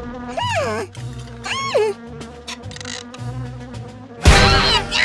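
Cartoon sound effect of a buzzing fly, swooping up and down in pitch twice, over soft background music; a sudden loud hit comes near the end.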